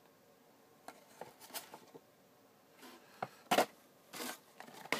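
Handling noise from cardboard figure boxes being shifted: scattered light taps and rustles, with a sharper knock about three and a half seconds in and a brief rustle soon after.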